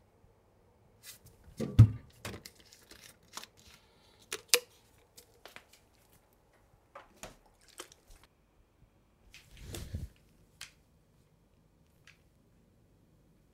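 Someone rummaging in a small refrigerator: packaging rustling and items clicking and knocking, with a sharp knock about two seconds in the loudest. A dull thump near ten seconds in is the fridge door shutting.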